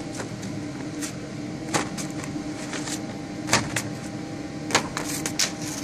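Steady hum of a suction fan drawing air through a buried ventilation pipe, with irregular clicks and rustles from a sheet of paper fluttering against the pipe's mouth as it is sucked in.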